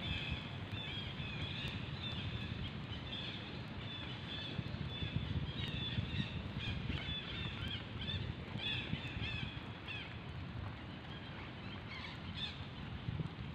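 Birds chirping in quick, repeated high calls, over a steady low rumble of wind on the microphone.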